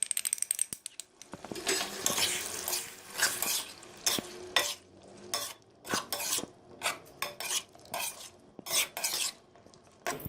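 A spoon stirring and scraping around a karahi in irregular strokes, mixing beaten yogurt into chicken that is sizzling in oil or butter.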